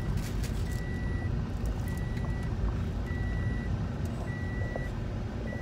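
An electronic beeper sounding a steady high beep about half a second long, repeating a little less than once a second, five times, over the low rumble of a car.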